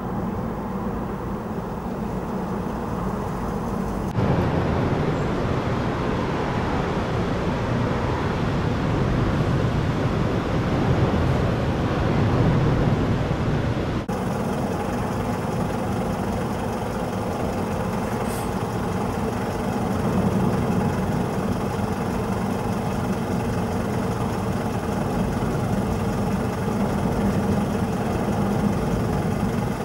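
Steady rumble of road traffic from the M5 motorway passing overhead on its viaduct. It grows louder about four seconds in.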